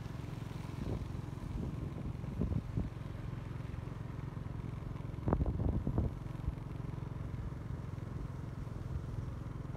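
Small motorbike engine running steadily as it rides along. Brief bursts of knocking or buffeting noise break in at times, strongest about five to six seconds in.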